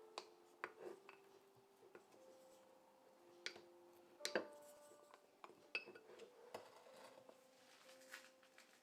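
Faint, irregular clinks and taps of kitchen utensils against dishes, several leaving a brief ringing tone; the loudest comes a little past the middle.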